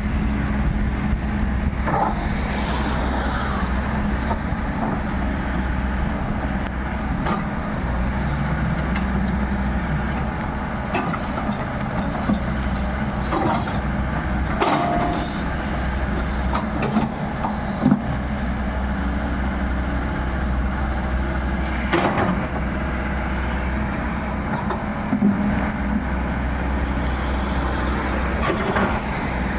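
Excavator's diesel engine running steadily under work, with a few sharp knocks and cracks scattered through.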